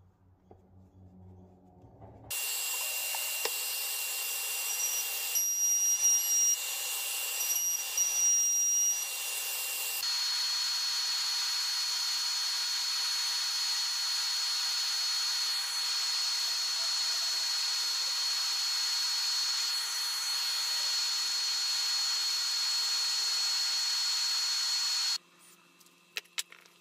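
Ozito mini disc sander's small electric motor running steadily with a high whine, with a few brief louder surges in the first part. It stops suddenly near the end.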